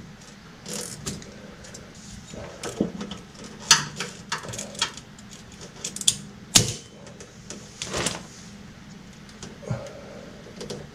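Hands fitting a rubber protective sleeve around a fuel hose against a car's frame: scattered light rustling and handling clicks, with a few sharper clicks about four, five, six and a half and eight seconds in.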